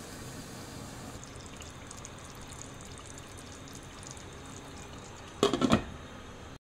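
Chicken karahi simmering in a pot: a faint crackle of bubbling gravy over a steady hiss, with a short loud clatter near the end.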